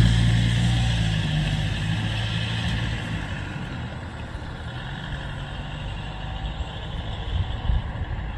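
A motor vehicle's engine running with a low hum that fades away over the first few seconds, then a low rumble that grows louder again near the end.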